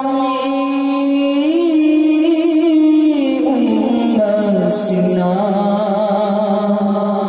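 A solo male voice singing a naat, an Islamic devotional song, into a microphone. He holds long, ornamented notes, and the melody steps down to a lower pitch about three and a half seconds in.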